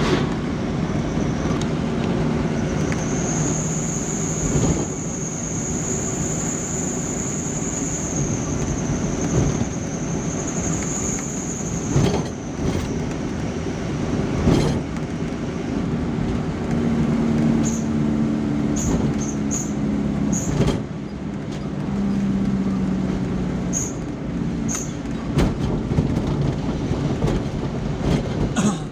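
Vehicle driving on the road: a steady engine drone with road noise and scattered knocks and rattles, and a high steady whine from about three seconds in until about twelve seconds in.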